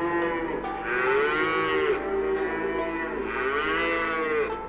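Cattle mooing: two long calls about a second apart, each rising and then falling in pitch, over soft background music.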